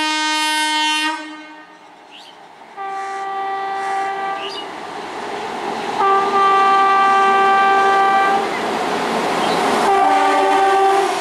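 Indian Railways electric locomotive sounding its horn in a series of long blasts, four in all, as an express train approaches at speed, with the rumble of the train growing louder under the later blasts.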